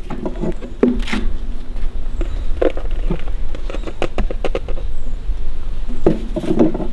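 Fish being handled in a vendor's cart box and passed into a plastic basin: scattered light taps and knocks, with a quick run of clicks about three to four and a half seconds in, over a steady low rumble.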